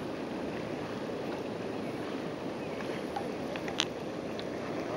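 Steady rushing noise of river water and wind around kayaks on the move, with one sharp click about four seconds in.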